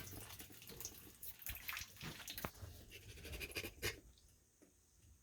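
Faint water trickling and dripping into the washing machine basin, with a few separate drops over the first four seconds and then near quiet. The drip comes from a water inlet valve that is not closing fully.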